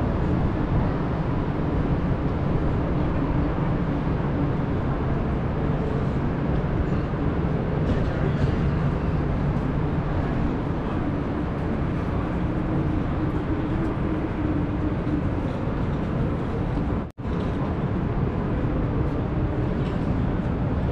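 Steady outdoor city ambience: a constant low rumble of traffic and harbour noise with a faint hum in it. The sound cuts out for a split second about seventeen seconds in.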